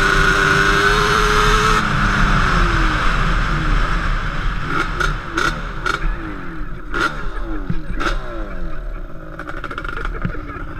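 Yamaha sport quad's engine held at steady high revs for about two seconds, then the throttle is rolled off: the revs fall away through several gear changes, with short sharp throttle blips, and settle to a low loose running sound near the end as the quad slows down.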